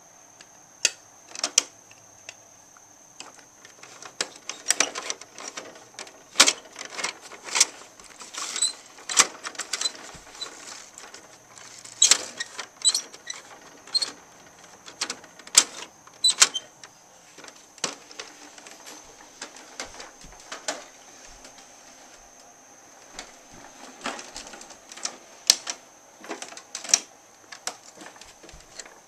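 Hard plastic parts of a Bruder toy garbage truck being worked by hand: irregular clicking and clattering as the rear bin-lifter, hopper and toy wheelie bin knock together.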